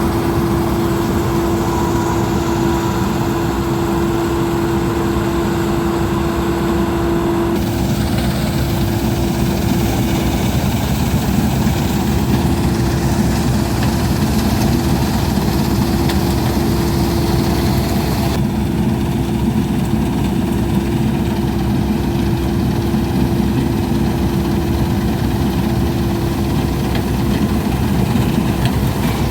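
Laverda Fiatagri 3790 combine harvester running steadily with a constant whine over the engine's rumble. The sound changes abruptly twice, about a third and two thirds of the way through.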